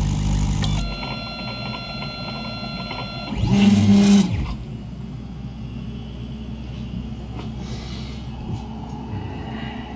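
Homemade 3D printer running while it prints ABS: its stepper motors whine in several steady high tones, then give a louder, lower buzz for about a second as the head makes a move, followed by a quieter steady hum. A louder sound cuts off abruptly under a second in.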